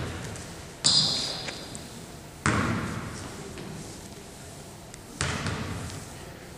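A referee's whistle blows briefly about a second in, then a basketball bounces on the hardwood gym floor twice, a couple of seconds apart, each thud echoing in the large gym.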